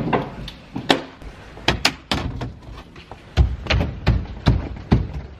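A run of irregular knocks and thuds, about a dozen in five seconds, some sharper and some duller.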